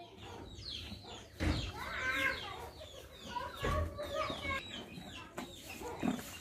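Chickens clucking in a string of short calls. Two dull thumps stand out, about a second and a half in and again near four seconds.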